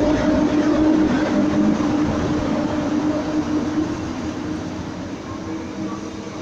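PKP Intercity passenger coaches rolling past along a station platform, their wheels running on the rails with a continuous rumble and a steady hum. The sound gradually gets quieter.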